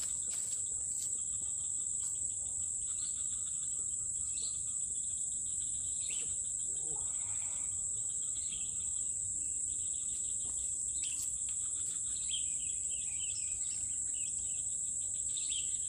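Steady high-pitched drone of insects in the riverside vegetation, with birds chirping briefly in the last few seconds.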